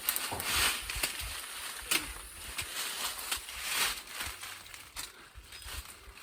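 Rustling of leaves and branches in irregular bursts, with a few short sharp snaps, as water apples are picked from the tree.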